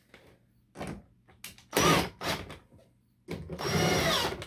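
Cordless 18-volt drill driving screws into the back of a 3D-printed plastic tail light housing: a short run about two seconds in, then a longer run of about a second near the end, its motor pitch shifting as it works. A few light knocks come before.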